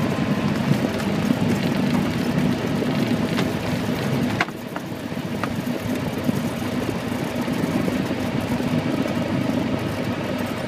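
Cessna 172's four-cylinder piston engine running at low power, heard inside the cockpit during the landing rollout and turn-off, with the propeller turning. A few light clicks near the middle, and the sound drops slightly after one of them.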